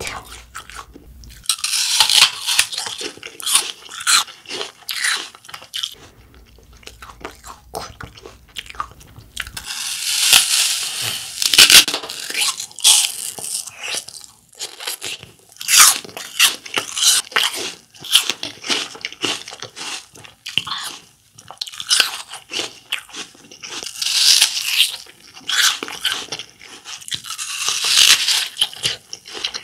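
Crunchy bites into a raw whole apple, followed by crisp chewing. Louder bouts of biting come about two seconds in, around ten to thirteen seconds in, and twice near the end, with steady crunchy chewing between them.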